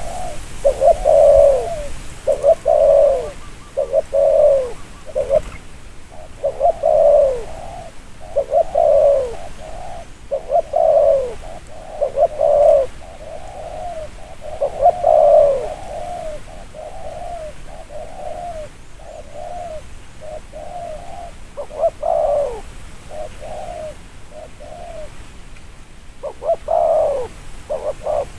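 Spotted dove (cu gáy) cooing over and over, in short low coo phrases about every one to two seconds, many sliding down at the end.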